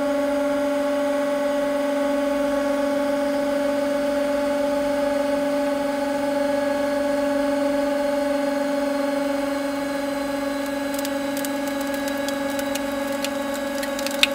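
Hydraulic press pump running with a steady whine as the ram bears down and the load climbs. In the last few seconds comes a run of sharp cracks and crackles, the loudest just before the end.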